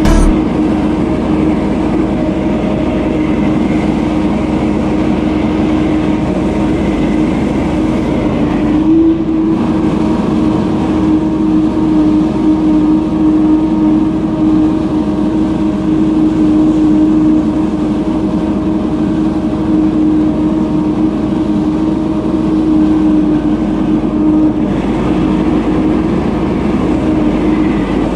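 Gas-powered leaf blower running steadily at full throttle: a constant engine drone with the rush of blown air.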